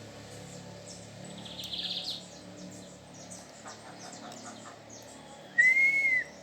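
Birds calling: many short high chirps throughout, a brief buzzy trill about two seconds in, and near the end one loud whistled note, under a second long, rising then falling in pitch.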